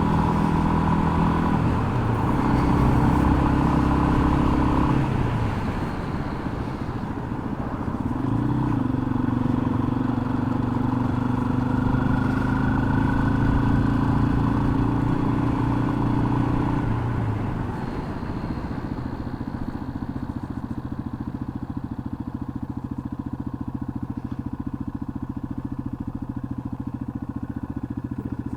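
2021 Yamaha XT250's single-cylinder engine running under way. The engine note climbs, dips about five seconds in as a gear changes, climbs again and holds, then falls away to a steady lower note a little past halfway.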